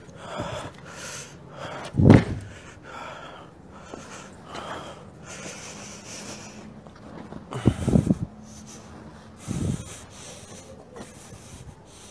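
Handling noise and rustling on a phone microphone as its holder clambers along a wall. There are loud bumps about two seconds in and again around eight and nine and a half seconds in.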